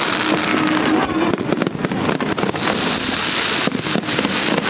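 Fireworks display going off: a dense, continuous stream of crackling pops and bangs with no pauses.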